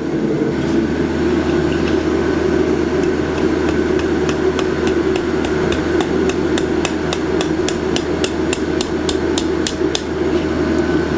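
Hammer striking hot steel on an anvil, scrolling the vine of a forged leaf. There are a few blows at first, then a steady run of about three quick strikes a second from about three seconds in.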